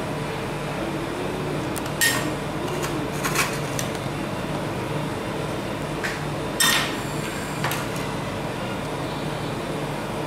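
A steady low hum with a few sharp clinks, the loudest about two seconds in and another near seven seconds.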